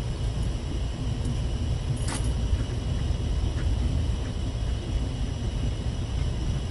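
Steady low rumble of a ship's engines and machinery heard inside a cabin, with a few light clicks from rod and reel parts being handled, the sharpest about two seconds in.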